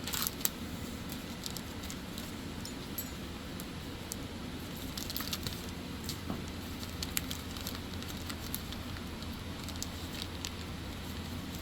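Hands handling a carburetor gasket and small parts: scattered light clicks and crinkles, a few at the start and a cluster about five seconds in, over a steady low hum.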